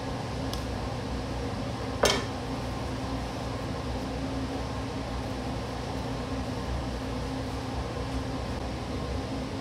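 Steady mechanical hum of kitchen machinery, with a single sharp clack about two seconds in as a metal bench scraper is set down on the wooden table.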